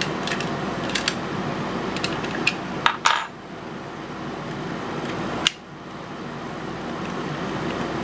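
Metallic clicks and clinks of a bit key being handled and tried in a mortise lock, with the loudest click about three seconds in and another sharp click about five and a half seconds in.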